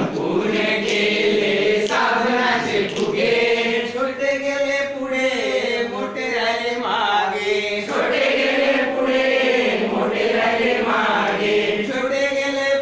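A mixed group of men and women singing a call-and-repeat action song together in unison, in phrases of about two seconds each.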